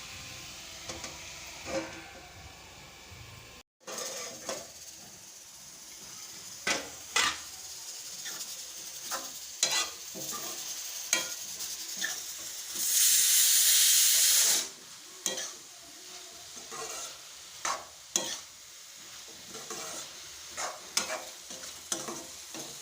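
A spoon stirs and scrapes through a sizzling pan of grated radish and potato, knocking against the pan many times. About thirteen seconds in, a loud hiss of sizzling lasts for nearly two seconds.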